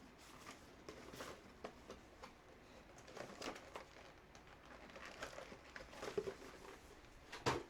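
Faint handling noises of foldable over-ear headphones and their cable: light scattered clicks, taps and rustles, with one sharper click near the end.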